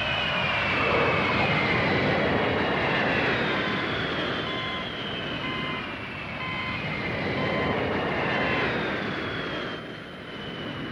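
Jet aircraft flying past: a loud rushing engine noise with a high whine that slowly falls in pitch, easing off near the end. A faint beep repeats in the middle.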